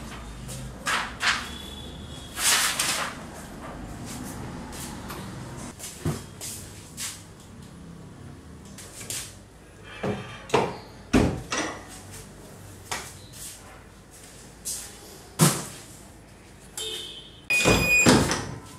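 Clamshell sublimation heat press being worked by hand: a series of clunks, knocks and rustles as printed fabric and transfer paper are handled and the press lid is brought down and opened. The loudest clatter comes near the end, together with a short high tone.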